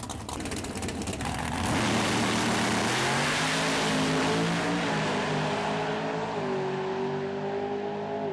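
Drag race car's engine running on the start line, then launching hard about a second and a half in and pulling away down the strip at full throttle. Its note fades with distance, the pitch stepping down twice.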